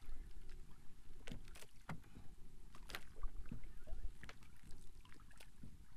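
Water lapping and slapping against the hull and bamboo outriggers of an outrigger canoe, with irregular sharp splashes or knocks over a steady low rumble.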